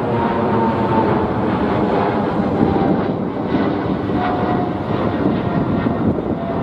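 Boeing 777-300ER's twin GE90-115B turbofans at climb power as the jet passes low overhead after takeoff. A loud, steady jet rumble with a faint whine that falls in pitch as the aircraft goes by.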